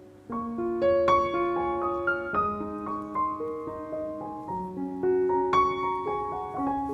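Background piano music: a gentle melody of single notes and chords that picks up about a quarter of a second in.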